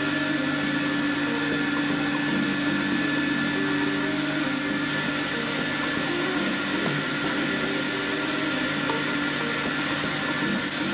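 Steady hum of a cordless drill's motor with a constant whine and hiss as it spins a soft brush over a wet carpet floor mat.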